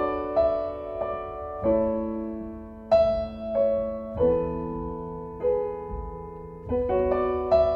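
Background piano music: slow, gently struck chords and notes that change every second or so and fade between strikes.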